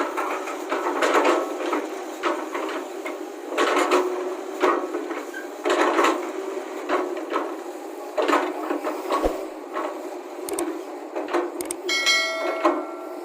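Excavator at work: a steady engine drone with irregular clanks and knocks from the machine, and a brief pitched tone near the end.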